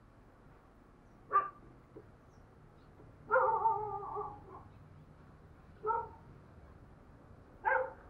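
Spotted dove cooing as a decoy call: four coos, a short one about a second in, a longer drawn-out one about a second later, then two more short ones.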